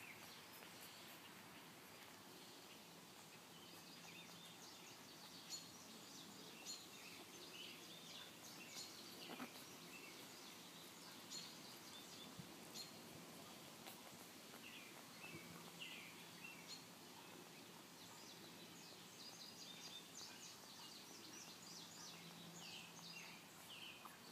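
Near-silent outdoor ambience with faint, short, high chirps scattered throughout and a faint low hum that comes and goes.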